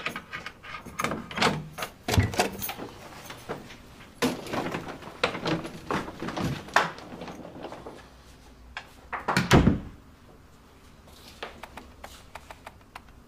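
A front door being handled: a run of clicks and knocks, then the door shut with one heavy thud about nine and a half seconds in. Faint ticks follow.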